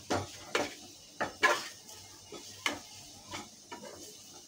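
Steel spatula scraping and knocking against a non-stick kadai while stirring mawa and sugar as it roasts, in irregular strokes a couple of times each second.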